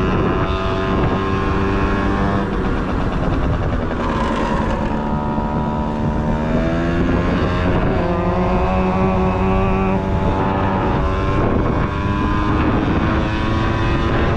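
Honda Topic moped engine running under way, its pitch sagging about four seconds in, climbing back a couple of seconds later and rising slowly again near the end, with wind on the microphone. The rider finds the moped short of power.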